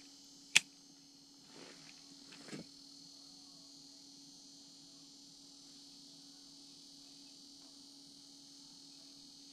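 A spinning reel's bail snapping shut with one sharp click about half a second in, followed by brief rustling of a jacket, over a faint steady hum and hiss.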